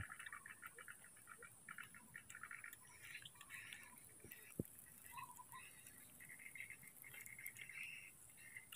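Faint outdoor ambience: short repeated high chirps come and go over a steady high-pitched whine, with one sharp click about four and a half seconds in.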